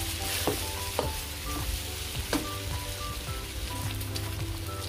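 Sliced pork sizzling as it browns in a nonstick wok, with a wooden spatula stirring and scraping it, giving a few sharp clicks. Soft background music plays underneath.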